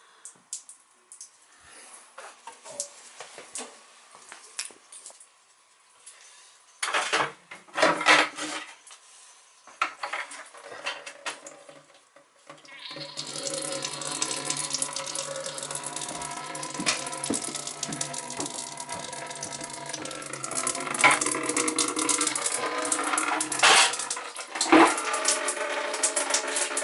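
Light metallic clinks and clatter of tools being handled. About halfway through, a steady hum with running water sets in and carries on under more clinks.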